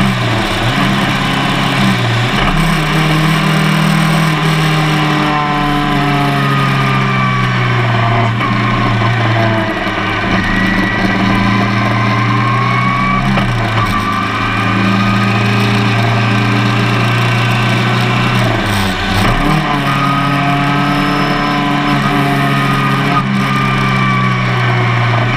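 Open-wheel single-seater race car engine heard from the cockpit while lapping a circuit at speed, its pitch climbing and then dropping sharply several times.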